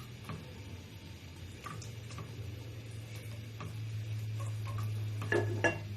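Scattered light clicks and taps of metal kitchen utensils on a pan, ending in two ringing metal clinks near the end, over a steady low hum that grows louder from about halfway.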